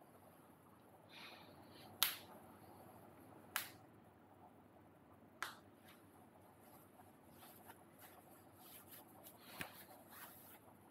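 Quiet handling noise: three sharp clicks or snaps about a second and a half to two seconds apart, then soft scattered rustling with one more click near the end.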